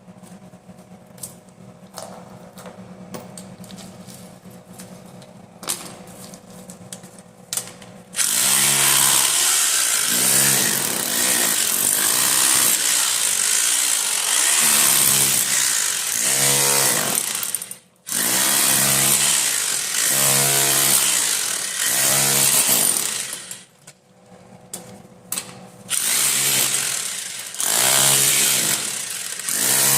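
Hammer drill boring in several long runs, its motor pitch swelling and sagging under load. The drilling starts about a quarter of the way in, after a stretch of low steady hum with scattered clicks and taps, and stops briefly twice.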